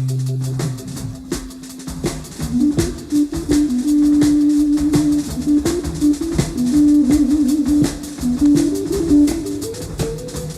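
Live hard rock band playing: a held low chord dies away in the first second, then drums keep time under a wandering low melodic line.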